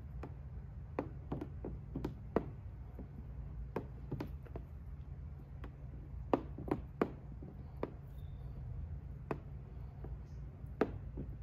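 Irregular light clicks and taps of a hard plastic squeegee working wet protection film over a car headlight lens, as water is pushed out from under the film. Underneath runs a steady low hum.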